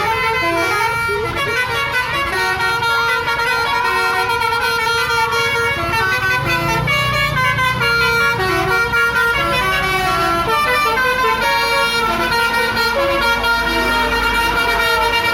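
Telolet multi-tone bus horn playing a quick tune of stepped notes, with a bus engine rumbling underneath, louder about halfway through.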